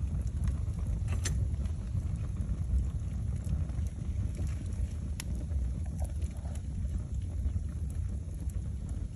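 Cardboard cereal box burning fast in a fireplace: a steady low rumble of flame with scattered sharp crackles and pops.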